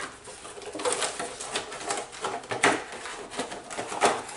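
Rustling, crinkling and knocking as a cuff-type blood pressure monitor and its packaging are handled, with several sharp clacks, the loudest near the end.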